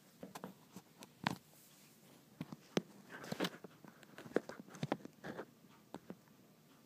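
Scattered light taps and knocks, irregular and faint, from a phone camera being handled and set down at floor level, with a few footsteps on the floor.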